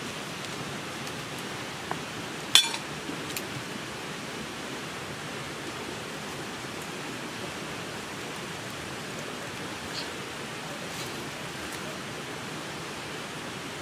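Steady, even rushing hiss like running water, with a sharp click about two and a half seconds in and a couple of fainter clicks later.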